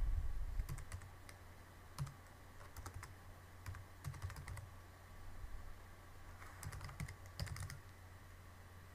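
Typing on a computer keyboard in short, irregular bursts of keystrokes, with a low steady hum underneath.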